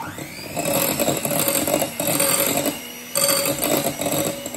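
Handheld electric mixer switching on and running, its beaters whirring through runny buttercream frosting to work in added cornstarch and thicken it. The sound drops briefly about three seconds in, then picks up again and eases near the end.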